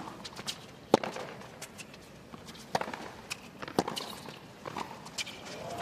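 Tennis ball struck back and forth with racquets in a hard-court rally: several sharp pops, the loudest about a second in.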